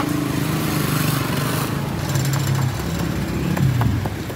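A small engine running close by over street traffic noise, its pitch shifting up and down.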